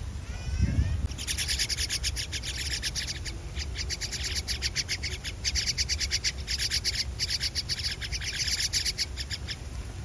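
Common myna nestlings begging in a tree-hole nest: a long run of rapid, harsh, chattering calls that starts about a second in, breaks off briefly near the middle and stops near the end, after a short rising whistled call at the start.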